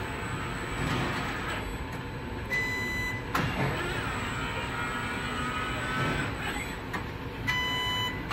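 ABB industrial robot's motors whining and humming as the arm swings a spot-welding gun. Twice, about two and a half seconds in and near the end, a steady high buzzing tone sounds for just under a second, likely the spot-welding gun firing on the part. A sharp click follows the first one.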